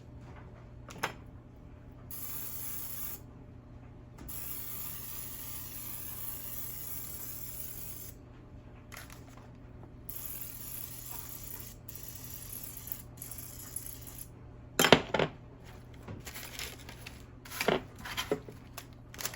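Spray can of cooking oil hissing in four long bursts over vegetables on a sheet pan, followed by a few sharp knocks and clatters.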